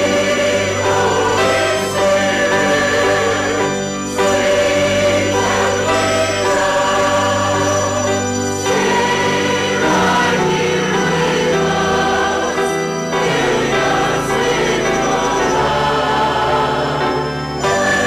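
Congregation singing a hymn together with instrumental accompaniment, with long held notes and short breaks between phrases.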